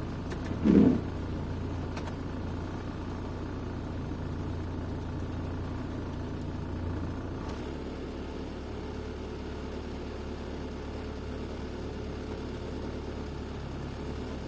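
Car engine running, heard from inside the cabin as a steady low hum that changes pitch a little about halfway through. A short loud sound stands out about a second in.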